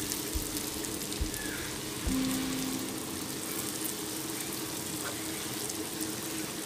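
Balls of dosa batter deep-frying in hot oil in a kadai: a steady sizzle, with soft background music under it.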